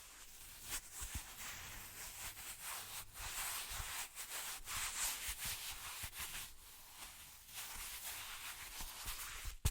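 Hands rubbing and brushing together close to a microphone turned up to full sensitivity: a soft swishing that swells and fades in quick strokes. A sharp tap comes just before the end.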